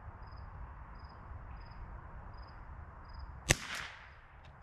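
A single shot from a Ruger Precision Rimfire .22LR rifle with a Shaw barrel, a sharp crack about three and a half seconds in, followed by a brief echo.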